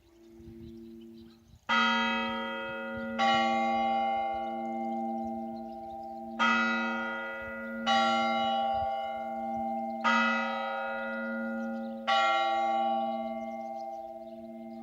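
Russian Orthodox church bells being rung: six strikes in three pairs, a few seconds apart, each leaving a long ringing tone that carries over into the next.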